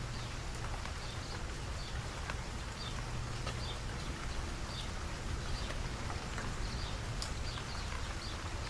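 Outdoor ambience on a rainy day: a steady low rumble and hiss, with scattered short bird chirps throughout.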